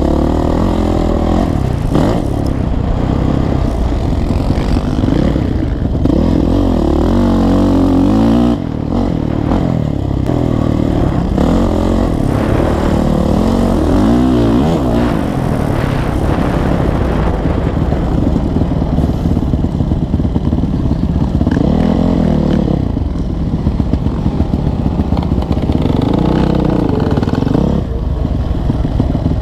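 Motocross bike engine heard close up from the rider's onboard camera, revving up and down over and over as it is ridden around a dirt track. A steady low rumble runs underneath. Near the end the engine eases off.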